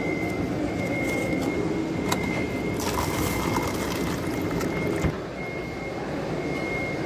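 Zamzam water tap running into a cup for about two seconds, starting about three seconds in and stopping with a sharp click, over a steady low rumble and a thin high tone.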